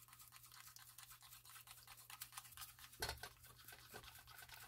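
Plastic spoon quickly stirring thick, wet herbal-powder paste in a paper cup: faint, rapid scraping strokes against the cup, with a slightly louder knock about three seconds in.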